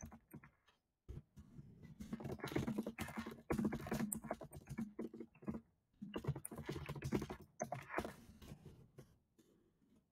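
Typing on a computer keyboard: quick runs of key clicks with short pauses about a second in and about six seconds in, thinning out near the end.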